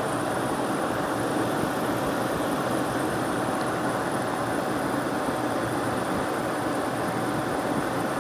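Late-1960s Sears Coldspot 6,000 BTU window air conditioner running, a steady rush of air from its fan. It is cooling properly, blowing cold air out the front and hot air out the back.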